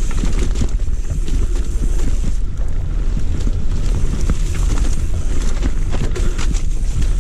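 Wind buffeting the microphone of a Ragley Big Al hardtail mountain bike being ridden along a rough trail, with many scattered rattles and knocks from the bike over the ground.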